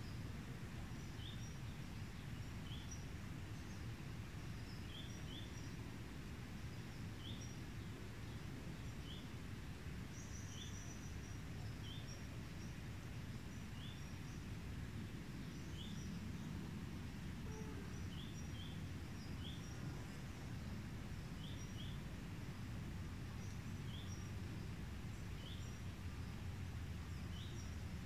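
Outdoor ambience: a steady low rumble of background noise, with small birds giving short, high chirps about once a second and a few higher twitters.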